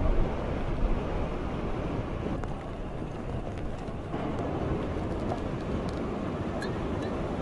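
Strong wind blowing across the microphone, a dense, steady rush with a few heavy buffets in the first second.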